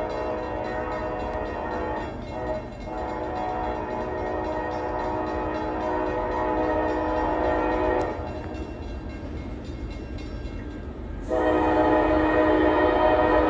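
Nathan K5LA five-chime horn on CSX CM44AC locomotive 7038, sounding long blasts of a multi-note chord. There is a brief break about two seconds in and a longer one past the middle. The final blast, starting near the end, is the loudest.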